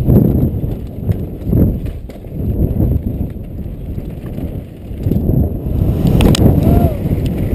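Downhill mountain bike ridden fast over dirt and rock, heard from a helmet-mounted camera: an uneven rumble of rolling tyres, rattling bike and wind on the microphone, with one sharp knock about six seconds in.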